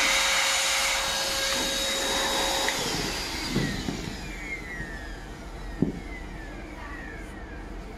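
Small electric air pump blowing air through a hose into a PVC inflatable horse, running steadily with a whine, then switched off about three seconds in, its pitch falling as it spins down. After that come squeaks from the taut inflated vinyl under her hands, with a sharp one near six seconds.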